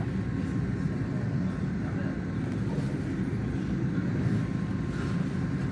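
A steady low rumble with no speech over it.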